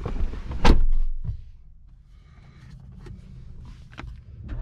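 Loud thuds in the Jeep Wrangler's cab, the loudest about a second in, then quieter handling noise and a click near the end as a dash button is pressed. Right at the end, a low rumble begins to rise as the engine starts.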